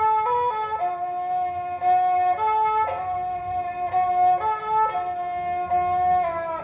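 Khmer tro, a two-string bowed fiddle, playing a slow melody of long held notes that step up and down in pitch, with a few short slides between notes.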